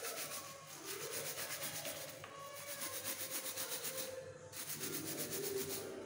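Blue scrubbing pad rubbed rapidly back and forth over a wet, soapy plastic power plug, scrubbing caked dirt and grime off it.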